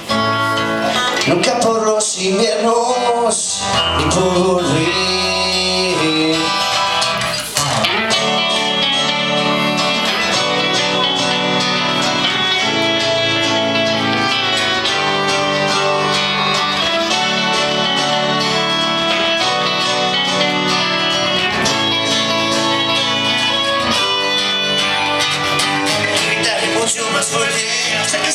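Live band playing a stretch of the song without lyrics. A wavering melody line leads for the first several seconds, then the band settles into steady sustained chords.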